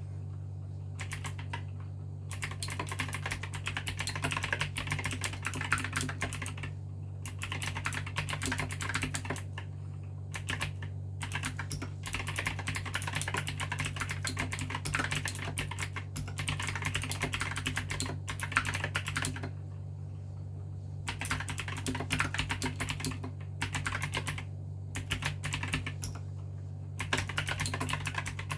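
Fast typing on an Aigo A108 gaming mechanical keyboard with clicky blue switches: rapid key clicks in runs broken by brief pauses. A steady low hum sits underneath.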